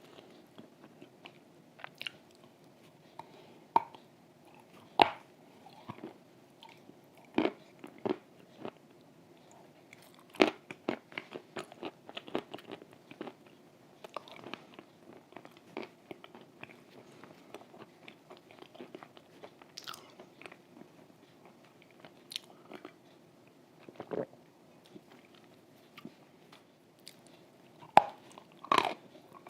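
Close-up biting and chewing of cream-soaked Volokonovka chalk: a dozen or so sharp crunching bites spread through, with softer crackling chews between them.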